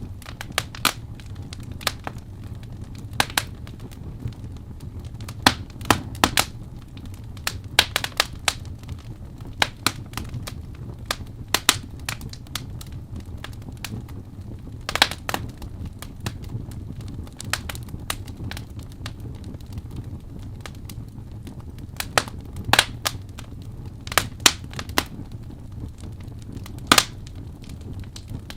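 Wood fire in a fireplace crackling, with sharp irregular pops and snaps scattered every second or so over a steady low rumble of the flames.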